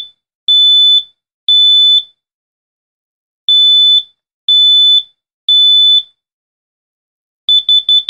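BRK 86RACO combination smoke alarm sounding its high-pitched horn after the test button is pressed. It gives groups of three half-second beeps with a pause between groups, the standard temporal-three evacuation pattern. Near the end comes a quick run of short beeps.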